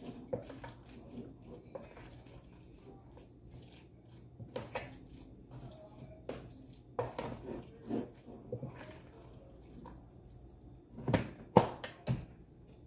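Hands working crab and shrimp filling in a plastic container: faint scattered clicks and soft rustles, with a few louder knocks near the end.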